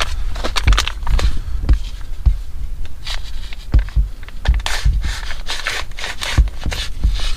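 Foil army ration pouch being torn open and handled, with irregular crinkling and scraping and low handling thumps.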